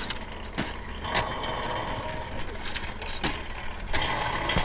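Clay brick extruding machine running: a steady low drone broken by irregular sharp knocks and clanks.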